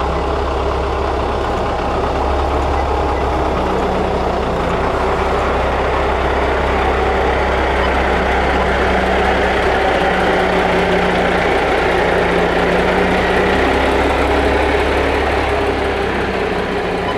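Diesel engines of heavy tractor units running at a slow crawl while hauling E5 Shinkansen cars on low trailers: a steady low drone that grows a little louder through the middle as the next tractor unit comes close.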